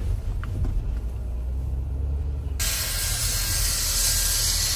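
Steam locomotive No. 3025 venting steam: a loud, steady hiss comes on suddenly about two and a half seconds in, over a low rumble heard from inside the car.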